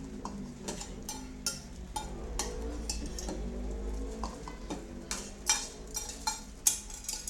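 A spoon clinking and scraping against a plate and pot while rice is served out: a string of sharp taps and clicks, two louder knocks near the end.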